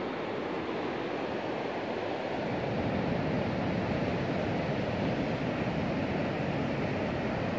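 Steady hiss of sea surf breaking on a sandy beach, mixed with wind on the microphone, growing a little louder and deeper about two and a half seconds in.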